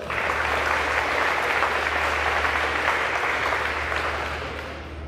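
Audience applauding, starting suddenly and tapering off near the end.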